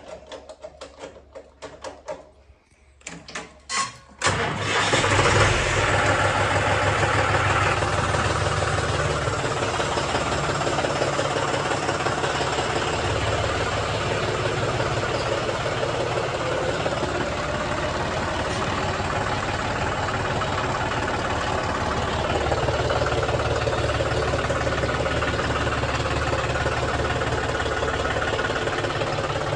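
A few faint clicks, then about four seconds in the John Deere tractor's diesel engine starts and runs steadily at low speed.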